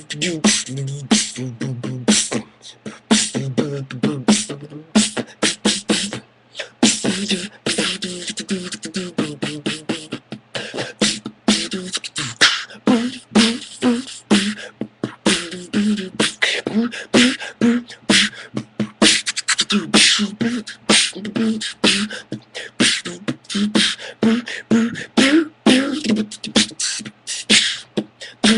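Solo vocal beatboxing: a fast, continuous rhythm of mouth-made percussive clicks and hisses with hummed, pitched vocal tones woven through it. It is a beatbox rendition of an electronic song.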